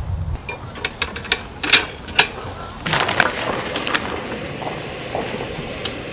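Irregular sharp clicks and light knocks of camping gear being handled, most of them in the first few seconds.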